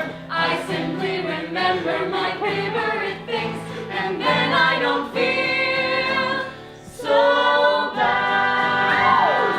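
A small ensemble of voices singing in harmony, holding long sustained chords as a song finishes. Near the end, audience members begin to whoop and cheer.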